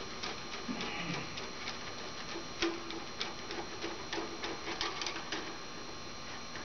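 The tightening screw of a metal clamping band on a rubber chimney seal being run down by hand, giving irregular light metallic clicks and ticks, two or three a second.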